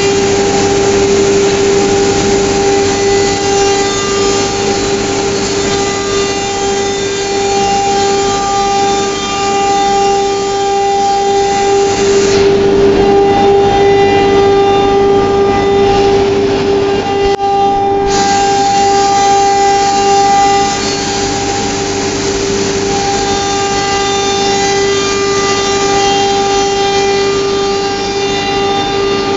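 ATC CNC router spindle running with a steady high-pitched whine while its bit cuts grooves into a sheet of board, with a hiss of cutting over it. Partway through, the cutting hiss drops away for several seconds while the spindle whine carries on, then comes back.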